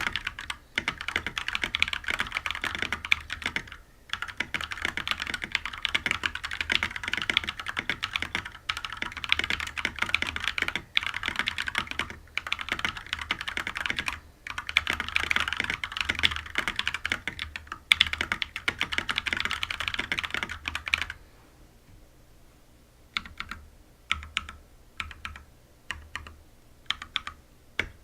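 Fast, continuous typing on a GMMK TKL mechanical keyboard with unlubed Holy Red Panda tactile switches and PBT keycaps, with a few brief pauses. About two-thirds of the way through it slows to scattered single keystrokes.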